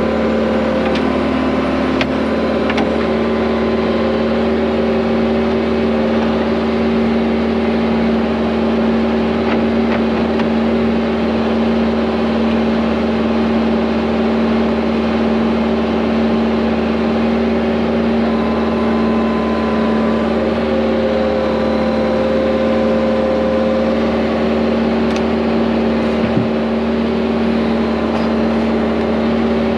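Excavator diesel engine running at a steady speed, a constant hum that holds its pitch throughout.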